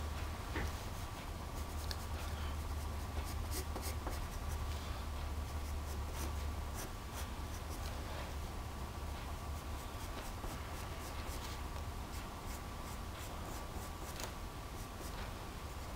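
Pencil scratching on paper in short, scattered strokes while drawing, over a steady low hum.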